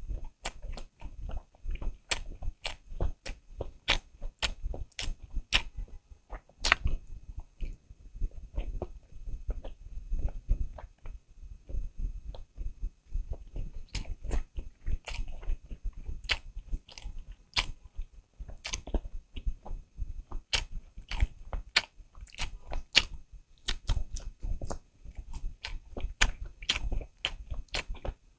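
A person chewing and biting food, a fast irregular run of sharp crunchy clicks, several a second.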